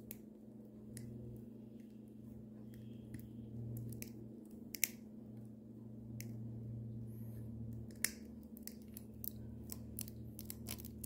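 Diagonal cutters clicking and snipping as they work at the crimped end cap on a bicycle brake cable, with a few sharper snips about five and eight seconds in. A steady low hum runs underneath.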